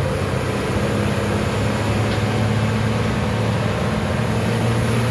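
Turbocharged six-cylinder MWM TCA 6.10 bus engine, converted to run on natural gas (CNG), running steadily with a low drone.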